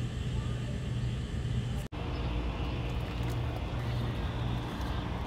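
Steady low rumble of a vehicle engine running, with a brief dropout about two seconds in.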